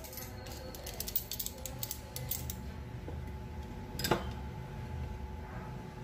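Light metallic clicks and knocks from locking pliers and a blender motor housing being handled, with one sharper click about four seconds in. The pliers grip the motor shaft so the drive coupling can be unscrewed.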